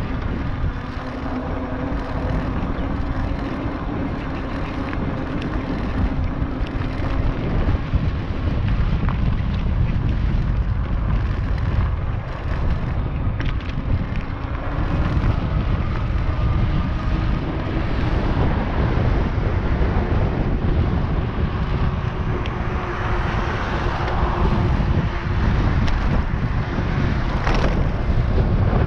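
Wind buffeting the microphone while riding an NCM Aspen fat-tire e-bike, with a faint steady whine from the electric motor at times.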